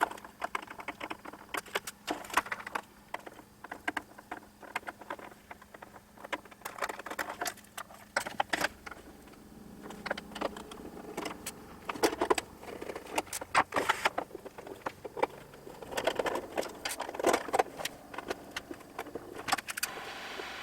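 Irregular clicks, taps and rattles of hand tools and small metal parts being handled while taking apart an oscilloscope, with a faint steady hum underneath.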